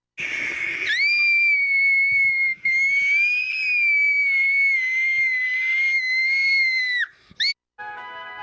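A short hiss, then a high-pitched whistle held for about six seconds, wavering slightly before it dips and cuts off.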